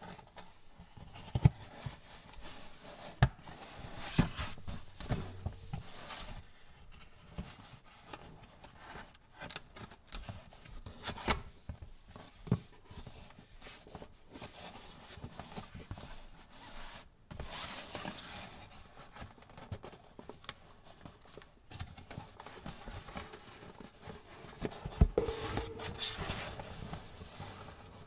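Gloved hands handling a cardboard box: the card rubbing and scraping as it is turned and slid open, with scattered sharp taps and clicks.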